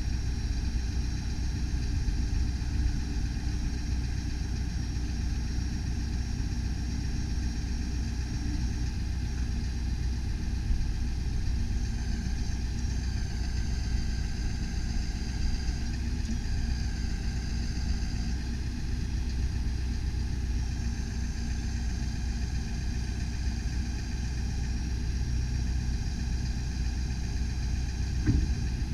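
Ford F-550 bucket truck's engine idling steadily while its hydraulic boom is lowered, with faint high whining tones that shift partway through. A single clunk near the end as the boom settles into its rest.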